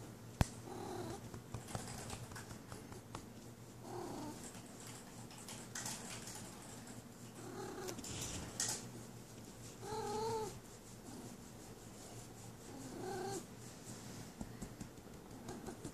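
Domestic female cat in heat giving short, low yowling calls, about five of them roughly three seconds apart, over steady purring while her lower back is stroked, the in-heat calling of a queen wanting a tom.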